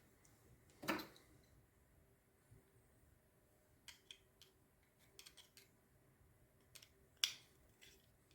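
Scattered small clicks and taps of hair-trimmer parts being handled during disassembly: one about a second in, a quick cluster around the middle, and the sharpest click near the end.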